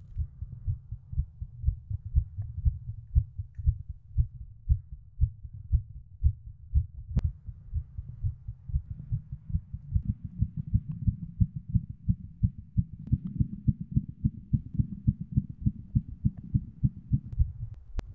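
Low, rapid rhythmic thumping like a racing heartbeat, a horror-film sound-design pulse, about three to four beats a second, growing fuller about ten seconds in. A single sharp click comes about seven seconds in.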